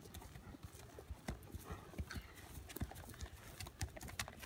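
Hoofbeats of a ridden Tennessee Walking Horse on soft grassy ground: a faint, irregular run of dull thuds.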